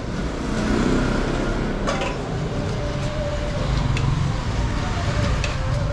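Steady low rumble of street traffic, with a sharp clack about two seconds in.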